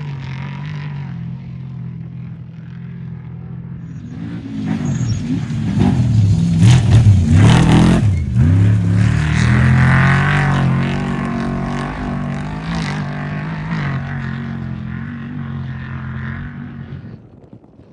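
Desert trophy truck's engine approaching, revving up and down as it passes at speed about seven seconds in, then fading as it drives away.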